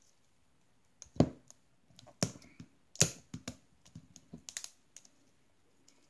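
Irregular clicks and taps from hands turning a plastic-wrapped LOL Surprise Pets ball, with a heavier thump a little over a second in.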